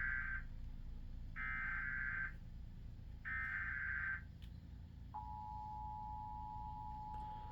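Emergency Alert System SAME header data bursts, announcing a severe thunderstorm warning: the tail of one buzzing digital burst, then two more of about a second each, evenly spaced. About five seconds in, the EAS two-tone attention signal (853 and 960 Hz together) starts and holds steady.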